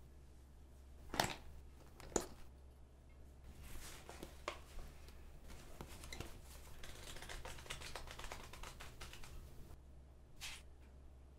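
A leather-bound book being handled: two sharp clicks about a second and two seconds in, then paper pages riffling and flipping for several seconds, with one more page turn near the end, over a low steady hum.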